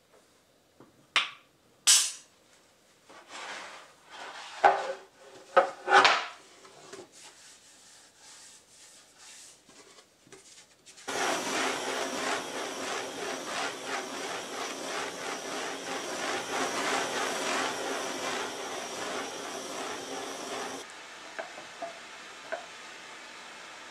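A few sharp clacks and knocks of a plastic board and hand tools set down on a tile floor, then a handheld propane torch burning with a loud, steady rushing hiss for about ten seconds, heating the recycled plastic decking blank. Near the end the hiss drops suddenly to a quieter steady level.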